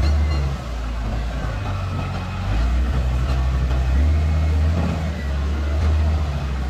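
Wheel loader's diesel engine working under load, a steady low drone that eases off about half a second in and picks up again around two and a half seconds, as the throttle is worked.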